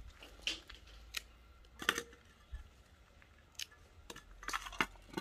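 Green custard apples being dropped and pushed into a small metal bowl: a string of separate light knocks and clinks, about eight over five seconds.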